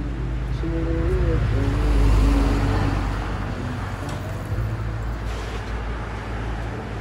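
Street traffic: a motor vehicle passes close by, its engine and tyre noise swelling to a peak about two seconds in and then easing. A steady low traffic rumble runs underneath.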